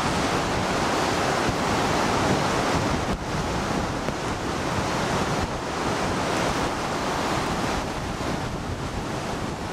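Strong, gusty storm wind buffeting the microphone over the steady wash of choppy bay waves breaking on the rocky shore, the wind of an approaching hurricane.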